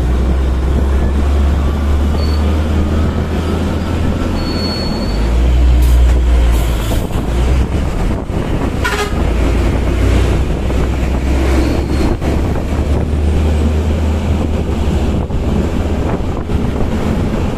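Hino Ranger dump truck's diesel engine running steadily under way, with road and wind noise, heard from inside the cab. A few brief high-pitched tones come through over the engine.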